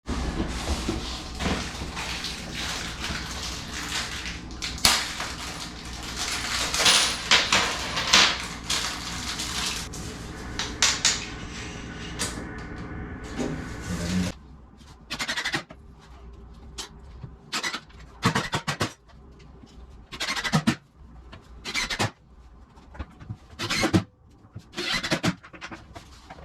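A motor hums steadily with a hiss for about fourteen seconds, then stops. A run of separate knocks and clatter follows.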